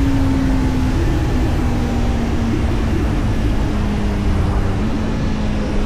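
Kawasaki Z900's inline four-cylinder engine running on the move, its pitch slowly falling as the revs ease off, over a steady low rumble.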